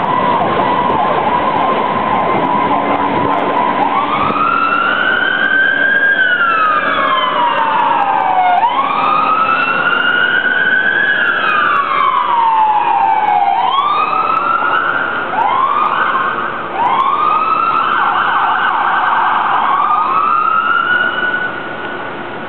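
Fire apparatus sirens on an emergency response. A steady tone in the first few seconds gives way to a siren winding up and slowly falling in pitch, twice. It then turns to quicker, repeated rising whoops, with more than one siren overlapping.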